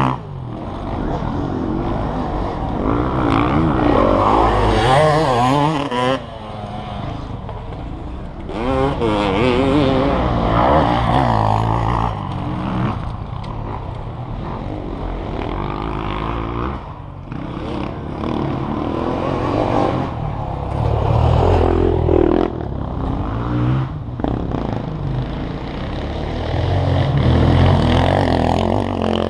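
Motocross dirt bike engines revving hard and easing off as the bikes ride around the track, rising and falling in pitch. The sound swells in several waves as bikes pass and drops back between them.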